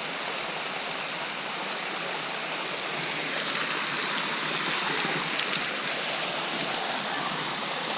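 Woodland waterfall: a steady, even rush of falling water, swelling a little around the middle.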